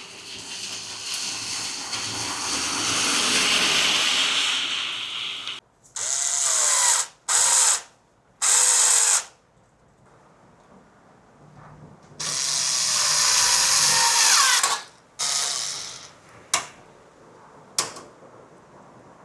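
Electric screwdriver running in bursts, driving screws. There is one long run of about five seconds, then several short bursts of about a second each, the motor pitch sliding as it spins up and slows. Two sharp clicks come near the end.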